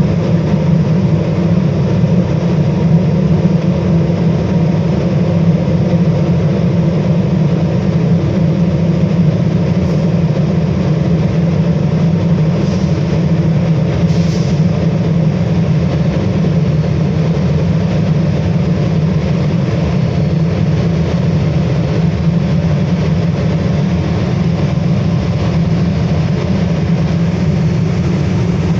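LPG-fired burner on an aluminium batch melting furnace running with its combustion-air blower: a loud, steady, unchanging noise with most of its weight low down.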